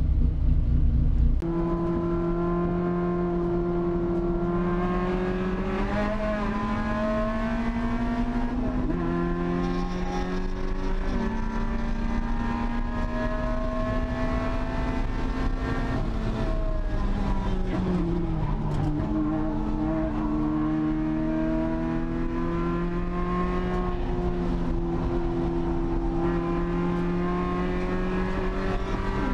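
Mazda MX-5 Miata (NC) four-cylinder engine heard from inside the cabin, pulling out onto the track. Its note climbs slowly through the revs, drops at a shift about nine seconds in, winds down for several seconds past the middle as the car slows, then climbs again.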